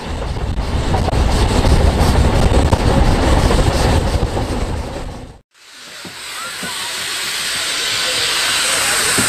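Ffestiniog Railway narrow-gauge train running, a heavy rumble with rail noise that cuts off about five seconds in. Then a narrow-gauge steam locomotive hissing steam, the hiss growing steadily louder.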